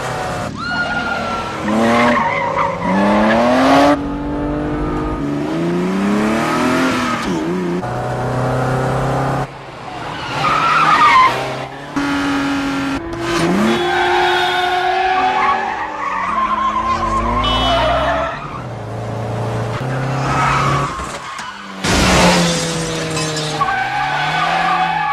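Car chase: engines revving up and down hard through the gears and tyres squealing through corners, the sound changing abruptly from shot to shot.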